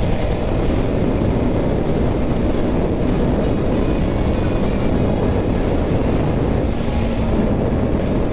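Motorcycle on the move: a steady rush of wind on the microphone over the engine's running, with no breaks.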